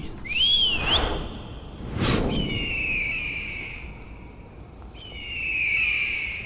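Screeches of a bird of prey: a short wavering call, then two long falling screeches, with a whoosh about two seconds in.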